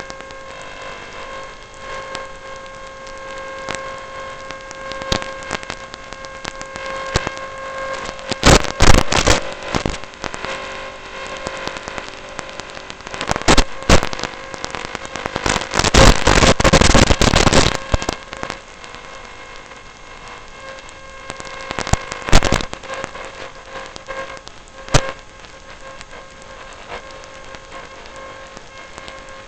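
Sound picked up on board a walking Mech Warfare combat robot: a steady whine with a few loud crackling bursts, the longest about two seconds long, and a sharp click near the end.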